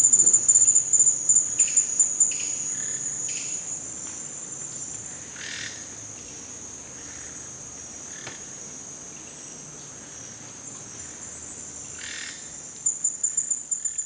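Rainforest insects shrilling in a steady, high, fast-pulsing trill. It fades down over the first few seconds and swells back near the end, with scattered short chirps from other forest creatures.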